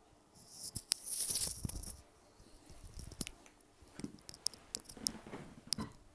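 Handling noise: a brief rustle near the start, then a series of small, irregular clicks and taps.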